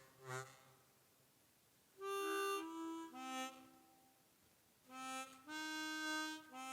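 Suzuki Sirius S48B bass chromatic harmonica played through a Fender Micro Mustang headphone amp set to hall reverb: two short phrases of held notes, some sounded two at a time, with a pause between and brief fading tails.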